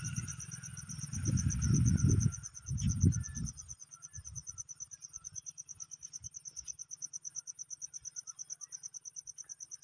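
Insects trilling steadily in a rapid, even pulse at two high pitches. A louder low rumble on the microphone covers the first three and a half seconds, then stops.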